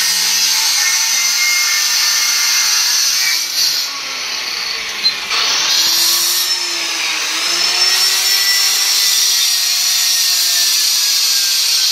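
Electric power tool running continuously, its high whine wavering in pitch as it works, a little quieter for a second or so about four seconds in.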